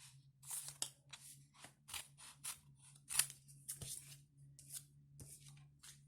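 Scissors cutting a small strip for a paper card: a series of quick, irregular snips.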